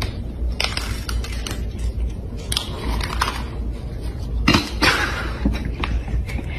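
Cats crunching dry kibble from a food bowl: irregular crisp crunches with light clinks of kibble and bowl, the loudest a little after four and a half seconds in, over a low steady hum.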